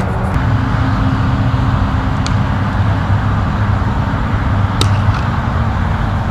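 Steady low outdoor background rumble with a few short sharp knocks, the loudest nearly five seconds in.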